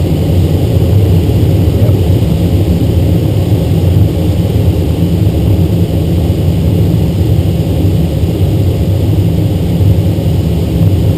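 Steady rush of airflow over a DG-1000 glider's canopy and fuselage, heard from inside the cockpit: a loud, even rumble, mostly deep, that stays unchanged throughout.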